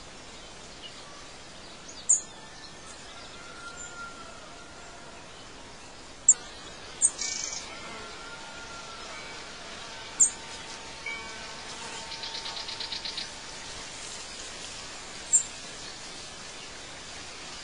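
Songbirds chirping: short, high calls every few seconds and a rapid trill a little past the middle, over a steady background hiss.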